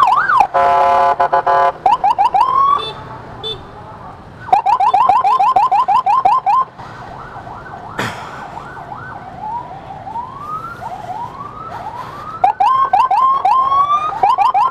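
Electronic emergency siren switching between patterns: a short wail, a steady horn-like blast, then fast yelping chirps and slower rising whoops. It is sounding to clear traffic for an ambulance.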